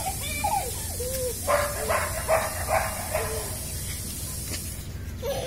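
A month-old puppy yapping and yelping: a few short pitched yelps, then a quick run of about five short yaps.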